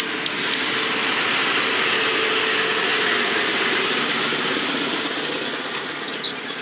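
Passenger coaches rolling past at close range behind a diesel locomotive: a steady rush and rumble of wheels on rail, with the locomotive's engine note fading away, the whole sound easing off near the end.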